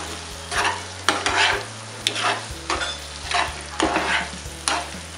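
Plastic spatula stirring boiled eggs through thick, oily onion-tomato masala in a pan, in repeated scraping strokes a little under two a second.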